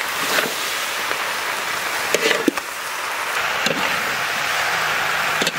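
Chopped onion leaves and potatoes sizzling and steaming in a large metal kadai, a steady hiss, while a metal spatula stirs them with a few sharp scrapes and knocks against the pan.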